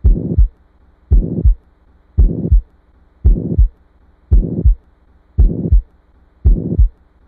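Heartbeat with a systolic heart murmur of the mitral valve, just under one beat a second. Each beat is a pair of low thumps, with a noisy murmur filling the short gap between them and quiet in the longer gap that follows.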